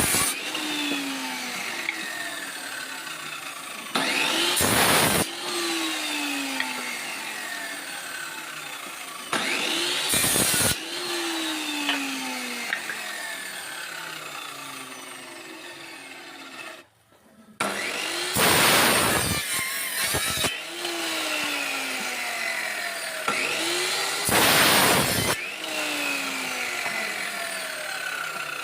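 Homemade power saw running, its blade cutting through wooden rafter beams again and again: each cut is a loud rasp about a second long, repeated every few seconds, with the motor's whine shifting in pitch between cuts. The sound drops out briefly a little past halfway.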